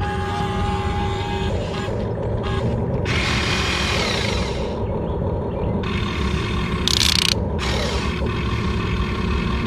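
Small electric motors and gearboxes of toy RC construction machines whirring, with a steady whine at first, a louder rushing stretch in the middle and a brief sharp burst about seven seconds in.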